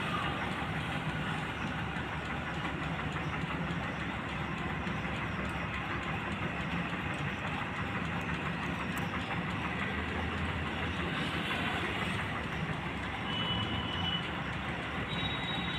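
Combine harvester running steadily while cutting paddy: a continuous mechanical drone from its engine and threshing machinery.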